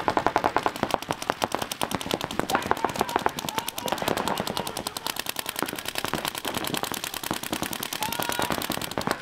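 Paintball markers firing in rapid, overlapping streams of shots, more than ten a second, without a break.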